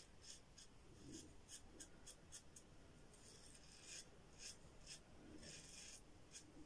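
Yuma closed-comb double-edge safety razor with a Derby blade scraping through lathered stubble on the neck: a faint series of short rasping strokes at an uneven pace.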